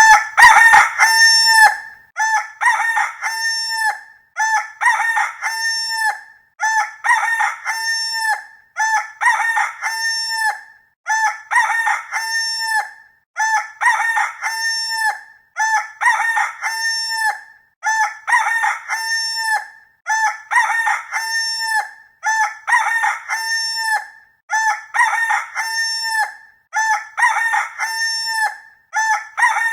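Rooster crowing cock-a-doodle-doo, the same crow repeated over and over at a steady pace of about one every two seconds.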